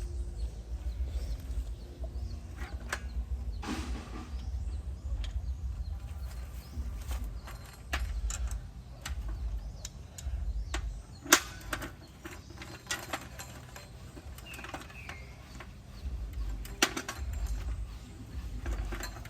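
Scattered clicks, clinks and knocks of hand tools and plumbing fittings being handled. The sharpest knocks come about eleven seconds in and again near seventeen, over a steady low rumble.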